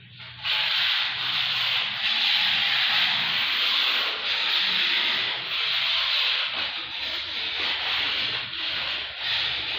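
Notched steel trowel scraping steadily across the floor as it spreads self-levelling epoxy, a continuous rasping scrape that swells slightly with each sweep.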